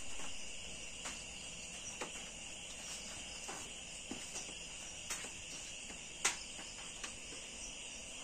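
Crickets chirring steadily at night, with a few light clicks or knocks scattered through, the sharpest about six seconds in.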